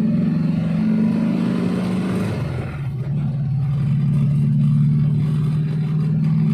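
Suzuki Espass van's engine running steadily, with a brief dip in pitch and loudness about two and a half seconds in before it settles back to an even hum.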